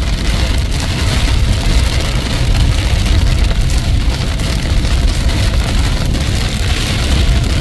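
Steady rushing noise of a heavy rainstorm, with a deep rumble underneath.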